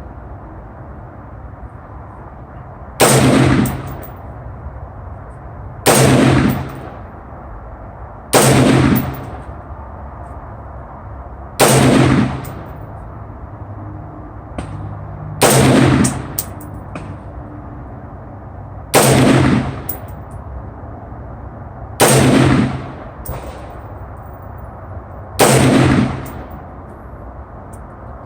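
AR-15 rifle fired eight times in slow single shots, about three seconds apart, each crack with a short ringing tail, being test-fired after a fix for under-gassing.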